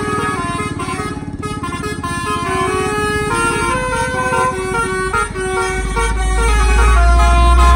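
Bus telolet horn, a set of air horns driven by an electronic module, playing a melody of short stepped notes over a running bus diesel engine. About six seconds in, a deep engine drone swells louder.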